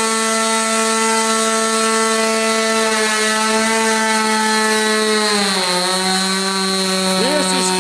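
1983 SuperTigre X25 4 cc two-stroke glow engine running flat out at a high, steady buzzing pitch on a bench test stand. About two-thirds of the way in its pitch falls as the engine slows.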